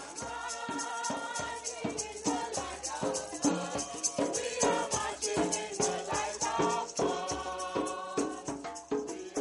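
A crowd of voices singing a lively hymn together in procession, with a shaker rattling a steady beat and a hand drum keeping time.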